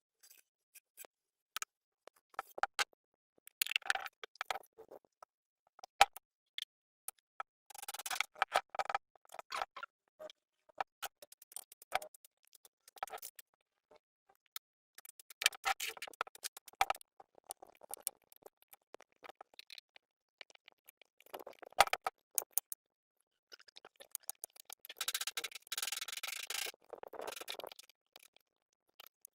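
Hand tools and metal generator engine parts being handled during a repair: irregular clicks, taps and short bursts of clatter, with longer scraping and rattling near the end.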